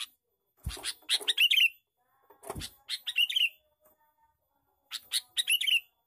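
Male sooty-headed bulbul singing its chattering lure song in three short bursts about two seconds apart, each a quick run of notes ending in a wavering phrase.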